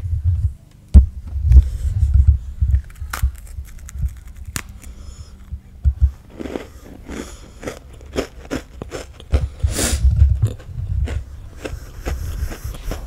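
Chewing and mouth noises picked up right at a headset microphone, with irregular low bumps and sharp clicks as the mic is handled.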